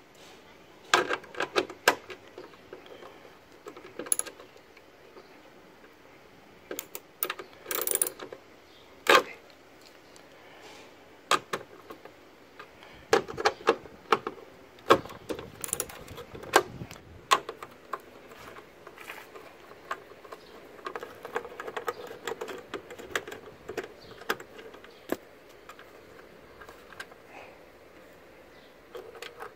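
Scattered clicks and small metallic rattles of a stubby screwdriver turning out the screws that hold a car's tail-light housing, with a quicker run of clicks about halfway through.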